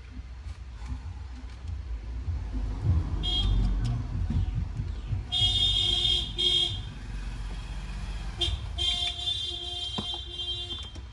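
Vehicle horn sounding in four blasts, two short and two lasting over a second, over a low, steady rumble.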